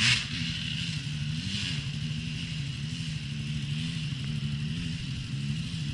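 Enduro dirt bike engine running under throttle on a hill climb, its pitch wavering slightly up and down.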